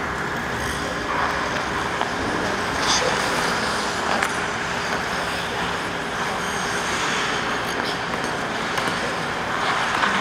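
Steady background noise of an indoor ice rink: a continuous hiss and rumble with a faint steady hum underneath.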